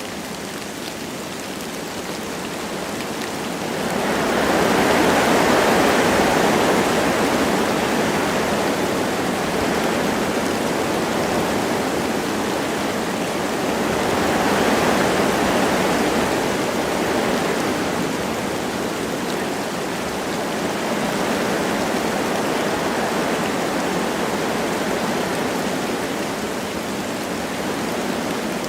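Wind gusting through forest trees with light rain falling: a steady rushing noise that swells about four seconds in and again around fifteen seconds.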